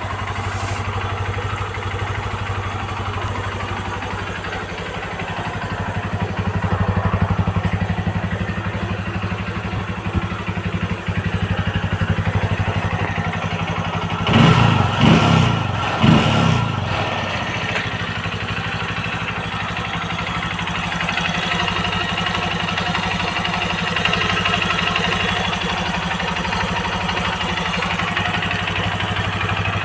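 Stock Honda CRF150L's single-cylinder four-stroke engine idling steadily through its stock exhaust, with two quick blips of the throttle about halfway through.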